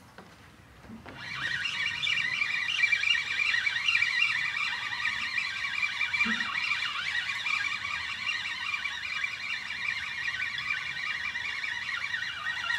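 Fishing reel on a sea rod being wound in with a fish on: a continuous, wavering whir of the reel that starts about a second in.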